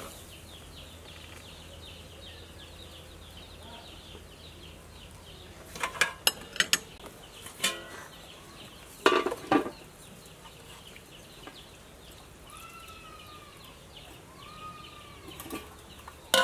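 Metal kitchenware clinking: a few sharp clinks about six seconds in and again around nine seconds, as a metal lid and serving tongs knock against an aluminium bowl. Chickens cluck in the background, with two drawn-out hen calls that rise and fall in the second half.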